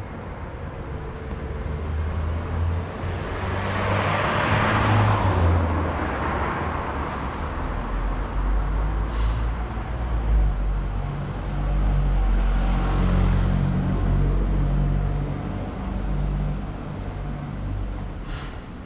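Street traffic beside the pavement: a vehicle passes about four to six seconds in, then a heavier vehicle's engine rumbles low for most of the rest before fading near the end.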